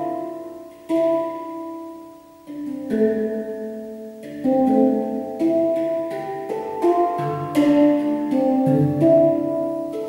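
Handpan played by hand: single steel notes struck and left to ring into a slow melody. The notes fade to a lull about two seconds in, then pick up again and come more often.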